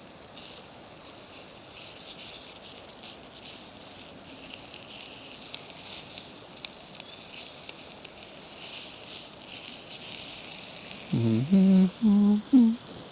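Sausages frying in a Trangia camping stove pan: a steady high sizzle with fine crackling.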